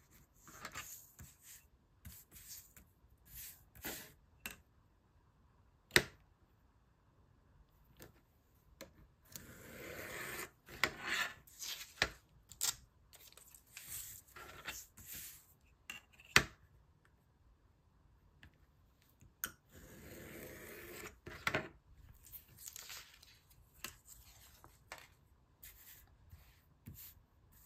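Scissors cutting around a magazine image, irregular snips of paper with paper rustling as the page is turned and handled, and two sharp clicks along the way.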